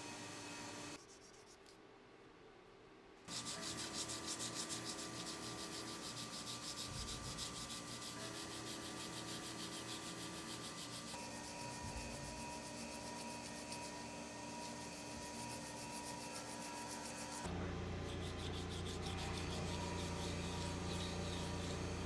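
Hand sanding of metal knife parts with abrasive paper: quick, rhythmic back-and-forth rubbing strokes starting a few seconds in. Near the end a steady low hum comes in under the rubbing.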